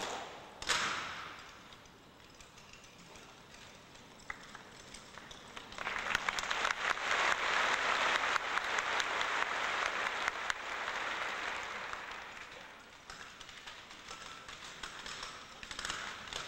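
Audience applause rising about six seconds in and dying away after about twelve. Two sharp cracks of rifle drill near the start and scattered clicks near the end, rifles slapped and handled in unison.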